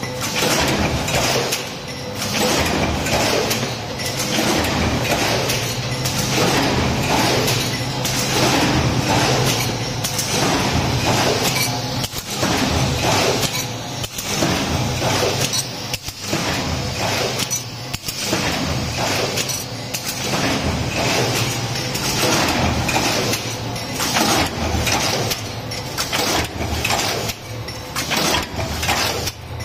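Transfer stamping press line running: a steady low machine hum under dense metallic clattering from the transfer mechanism and dies, in a working cycle that repeats about every two seconds.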